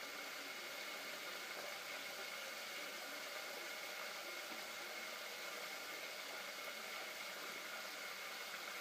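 Steady sizzle of chicken frying in a pan.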